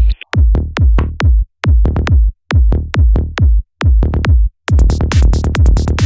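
Electronic dance music with a fast, heavy kick-drum beat and deep bass. Bright cymbal-like hiss joins in about three-quarters of the way through.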